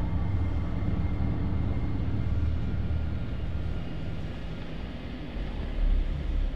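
Low, steady vehicle rumble, swelling briefly near the end.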